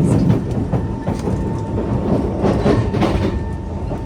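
Kawasaki C151 metro train running on the rails, heard from inside the car: a steady low rumble of wheels and running gear with a few short clicks and a faint steady hum.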